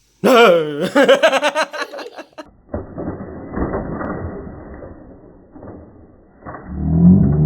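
A drawn-out, wavering vocal cry for about two seconds. It is followed by muffled, noisy rustling, and then a sustained musical tone that swells in near the end.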